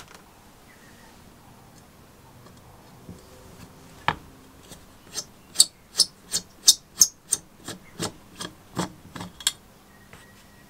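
Screwdriver working the small screws on the terminal strip of a telephone bell's metal base plate. About four seconds in comes a run of sharp metallic clicks, about three a second, lasting some five seconds.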